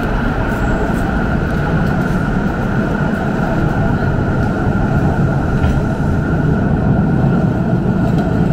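Steady rumble of a moving train, with a steady high whine over it.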